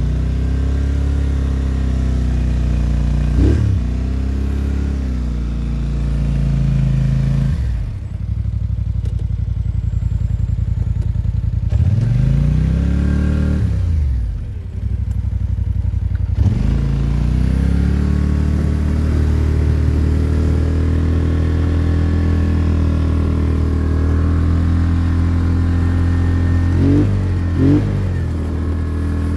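850 cc ATV engine working through deep snow, its revs rising and falling several times, then holding steady for about the last ten seconds with two quick blips of the throttle near the end.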